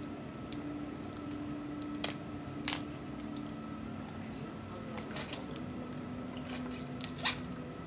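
Wet squishing and chewing as snow crab meat is pulled from the shell and eaten, with a few sharp shell clicks, the loudest near the end. A faint steady hum runs underneath.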